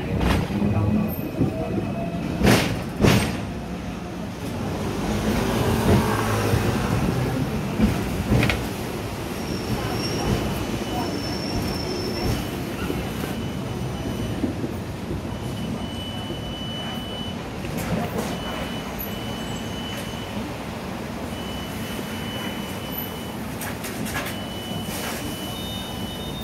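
Hong Kong double-decker electric tram running along the street, heard from its upper deck: a steady rumble and rattle of the car, with two sharp knocks a couple of seconds in and a thin high squeal that comes and goes through the second half.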